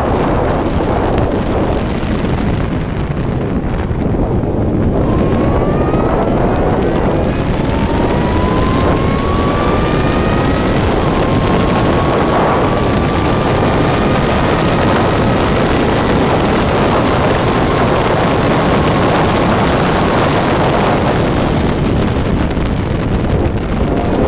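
Heavy wind buffeting the onboard microphone over a racing engine, whose faint note climbs and drops back several times from about five seconds in as it accelerates up through the gears.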